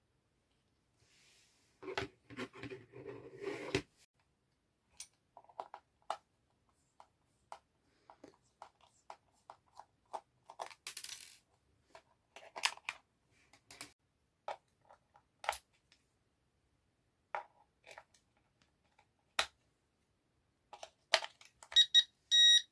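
Handling sounds of plastic parts and packaging: scattered clicks and taps, with a rustle about two to four seconds in. Near the end come a few short, high electronic beeps, the loudest sounds.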